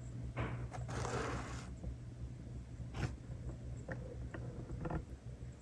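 Kittens at play make a run of scratching and rustling scrapes, then a sharp click about three seconds in and a few small, short scuffs, over a steady low hum.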